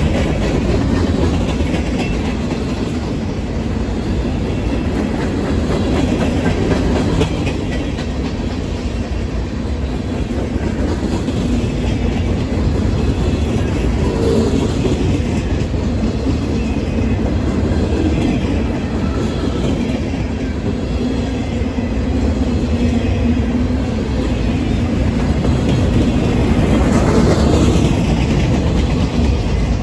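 Freight train cars rolling past at close range. Their steel wheels make a steady, loud rumble on the rail, with a fast run of clicks as the wheels pass over the joints.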